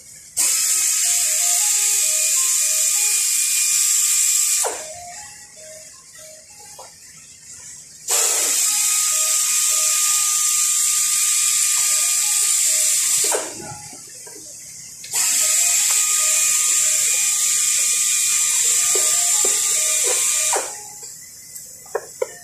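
Three long bursts of compressed air from a pneumatic workshop tool, each about four to five seconds, a steady hiss with a faint whistle that rises slightly as the tool starts. Quieter background music plays in the gaps between them.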